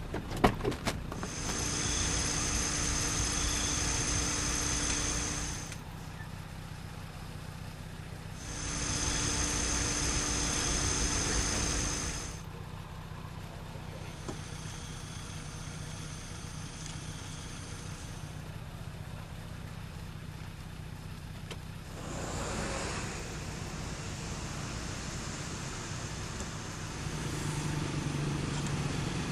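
A car idling with a steady low hum, with a few sharp clicks at the start. Over it come two loud rushes of hiss with a steady high whine, each about four seconds long, and a fainter one after them.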